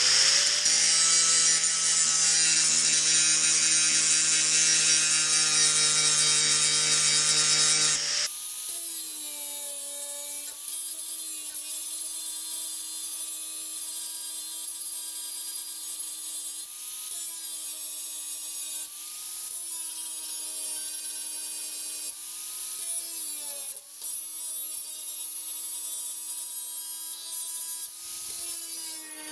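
Electric angle grinder grinding down plug welds on a steel body panel: a steady motor whine with harsh grinding hiss. About eight seconds in the sound changes abruptly to a quieter, lower whine whose pitch dips and recovers several times as the disc is pressed into the metal.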